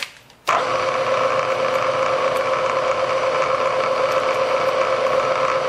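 Vertical milling machine switched on about half a second in, its spindle motor then running at a steady pitch with a constant hum.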